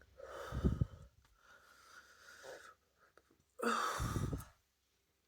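A woman's throat and breathing noises: two short, loud throaty sounds, about half a second in and again near four seconds, with softer breathing between them, as she works up air for burp talking.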